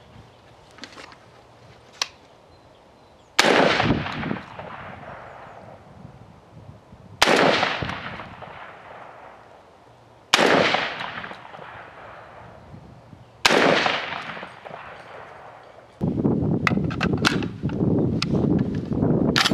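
UTAS XTR-12 12-gauge semi-automatic shotgun fired four times, about three to four seconds apart, each shot echoing away across open ground. Near the end, wind buffets the microphone and there are clicks of the gun being handled.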